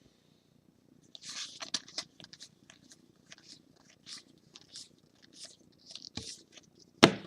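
Trading cards being slid and flicked through by hand: a run of short, irregular scrapes and rustles of card stock, with a sharp click just before the end.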